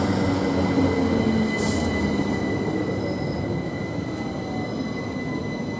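Class 387 electric multiple unit braking to a stop at the platform. A steady high brake squeal runs under the running noise, the level eases off as the train slows, and a faint falling whine appears in the second half as it comes to a standstill.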